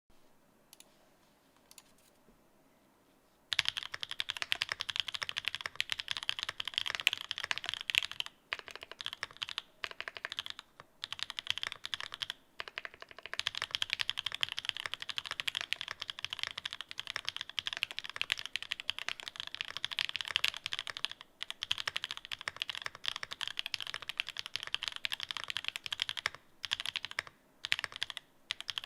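Fast, continuous typing on The New Eighty mechanical keyboard with Pure Berry linear switches and Domikey Gift Cherry-profile keycaps. It begins about three and a half seconds in after a near-quiet start and goes on with only short pauses.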